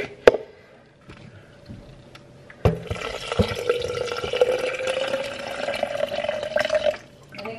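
Water poured from a pitcher into a plastic shaker bottle: a steady splashing stream of about four seconds whose pitch slowly rises as the bottle fills. A click comes just after the start, and a knock just before the pour begins.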